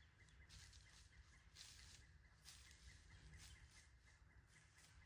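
Near silence: faint outdoor ambience with soft, irregular hissy rustles and a faint steady hum.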